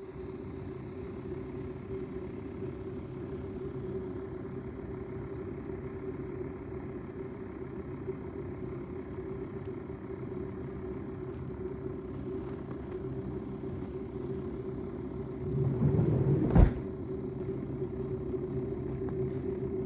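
Steady hum of a motor vehicle running, with a constant low drone, swelling briefly near the end and broken by one sharp knock.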